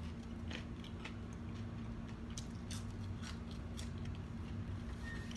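Close-up chewing of homemade french fries: irregular crisp crunches and mouth clicks over a steady low hum.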